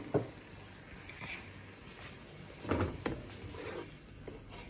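Wooden spatula stirring and scraping wet masala around a non-stick wok, with a few soft knocks against the pan, the loudest about three seconds in.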